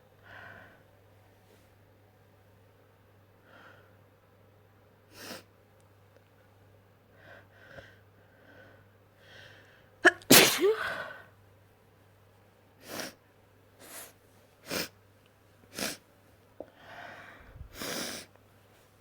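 A person's wet sneezes. A few quiet catching breaths build to one loud sneeze about ten seconds in, followed by four short, sharp bursts and a last sneeze near the end.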